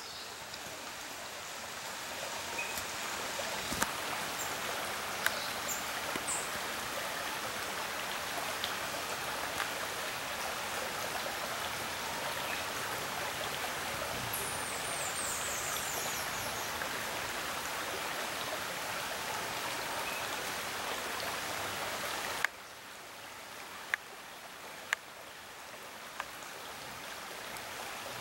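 Steady outdoor background hiss, an even rushing noise, with a few faint clicks and a short run of high falling chirps about halfway through. About two-thirds of the way in the hiss drops suddenly to a quieter level.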